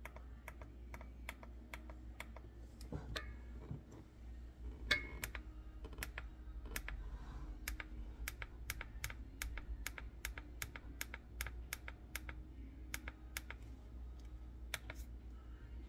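Button clicks on a Saladmaster electric temperature control unit, pressed over and over at about two or three clicks a second as the set temperature is stepped up to its highest setting.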